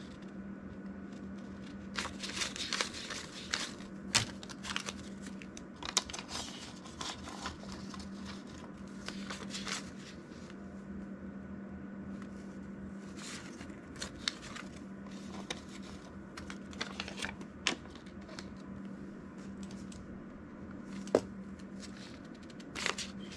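US paper banknotes being counted by hand: irregular rustling and flicking of the bills, over a steady low hum. A sharp tap about three-quarters of the way through.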